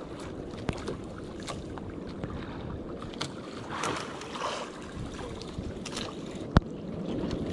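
Sea waves washing and wind on the microphone, with scattered small clicks and one sharp click about six and a half seconds in.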